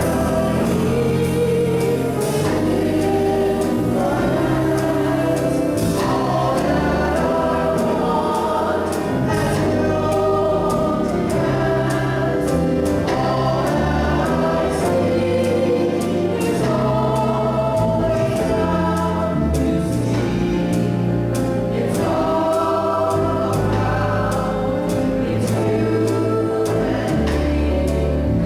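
A choir singing a gospel-style song over band accompaniment, with a bass line stepping between held notes and a steady beat.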